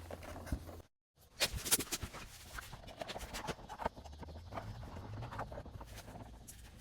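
A run of irregular light knocks and clicks over a low steady hum, thickest soon after a brief dead gap about a second in, then sparser.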